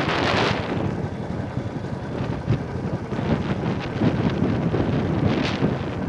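Royal Enfield motorcycle's single-cylinder engine running under way, a steady low rumble, with wind buffeting the microphone in gusts, heaviest in the first half second.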